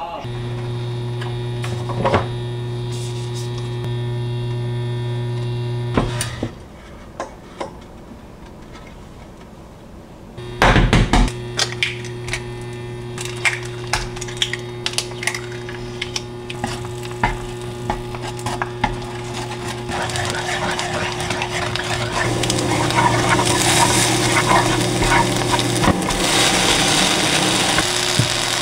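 Eggs cracked into a square nonstick frying pan and scrambled with garlic chives, with taps and clicks on the pan, a loud clatter about ten seconds in, and frying that sizzles louder from about two-thirds of the way through. A steady motor hum runs under most of it.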